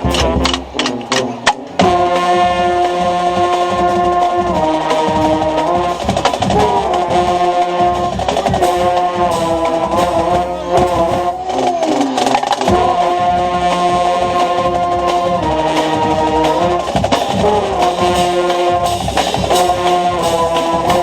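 Marching band playing loudly: drum strokes first, then brass with mellophones comes in about two seconds in, holding chords over the drumline, heard close to a mellophone.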